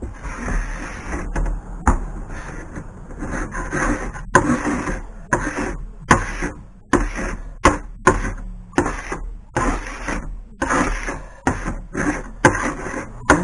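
Old paint being scraped off a sign by hand in repeated short strokes, roughly one or two a second, each starting sharply. This is after the coating has been left to soften for about ten minutes.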